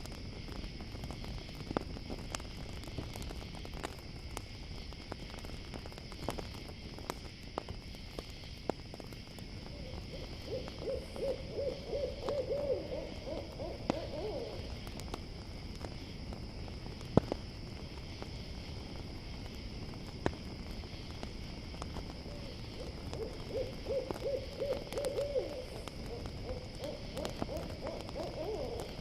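An owl calls twice, each call a rapid run of hooting notes lasting about four to five seconds. Behind it crickets chirr steadily and a campfire crackles with scattered sharp pops, one louder pop between the two calls.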